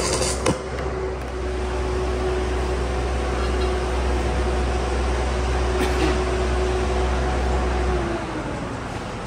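Engine-driven 800-amp welding machine running steadily after the last crackle of a 7018 stick-welding arc cuts off at the start, with a sharp click about half a second in. About eight seconds in, its engine note falls and the deep hum stops as the machine slows down.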